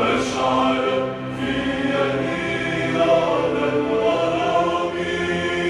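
Background music: a choir of voices singing long, held notes that change slowly.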